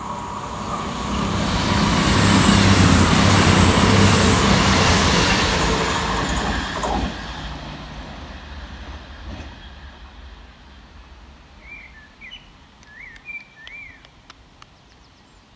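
Class 221 Super Voyager diesel-electric multiple unit passing through at speed: engine hum and wheel-on-rail noise build to a peak a few seconds in, then die away as it recedes. A few bird chirps near the end.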